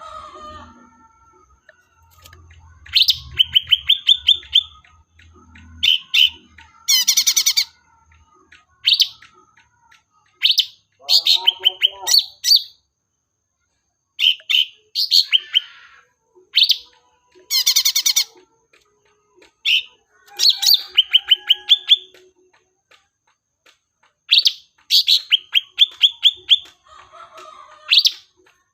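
Leafbird (cucak ranting) song played as a lure call: short phrases of quick, repeated chirps, separated by brief pauses, with a harsh buzzy rattle twice, about 7 and 18 seconds in.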